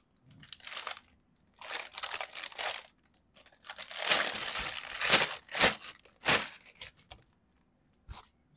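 Clear plastic wrapper crinkling and rustling in irregular bursts as it is pulled off a plastic doll, with a short knock near the end.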